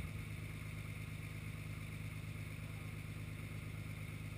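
Truck engine running steadily at idle, a low even drone, most likely the crane truck's engine kept running to power its knuckle-boom crane.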